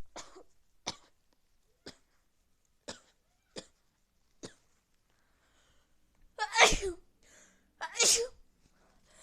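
A person with a cold sneezing twice, loudly, about six and eight seconds in. Before them come six short, sharp sounds spaced about a second apart.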